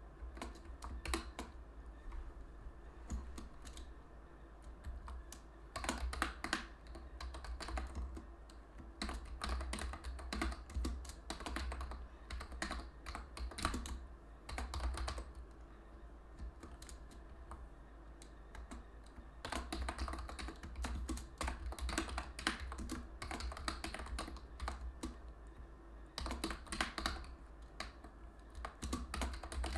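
Typing on a computer keyboard: quick runs of key clicks broken by short pauses, over a steady low hum.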